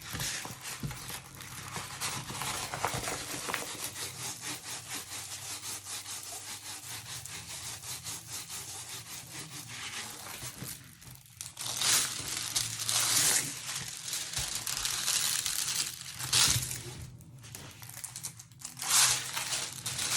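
Hands working over a plastic-covered diamond painting canvas: a long run of fast rubbing strokes, then louder crinkling of the plastic film in the second half.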